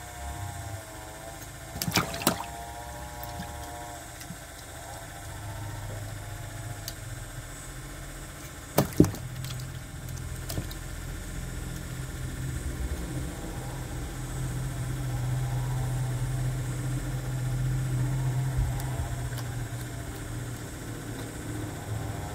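Sharp snaps as a hybrid crocodile bites at its food in a plastic bin: a close pair about two seconds in and another pair about nine seconds in. A low steady hum runs beneath, growing louder through the second half.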